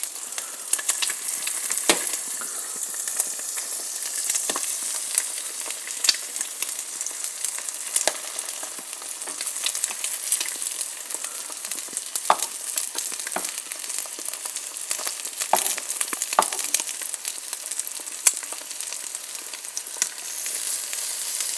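Butter sizzling and crackling in a frying pan around rye-bread slices with eggs cooking in their centres (birds in a nest), a steady hiss with frequent scattered pops.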